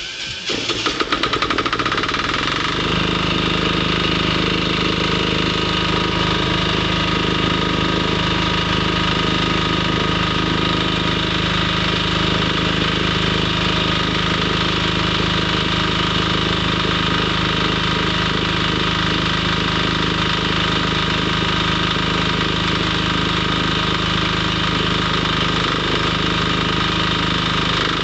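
A motor-driven machine starts up and settles within the first few seconds, then runs steadily with an even hum.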